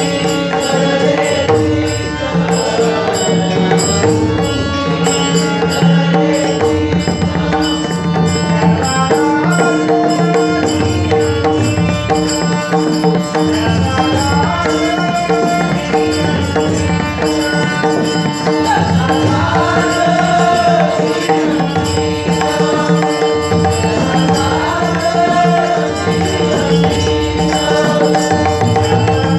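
A Marathi devotional abhang sung over pakhawaj drum strokes and a steady drone. The deep pakhawaj strokes keep a regular beat under the held drone, and the sung melody rises and falls most clearly through the second half.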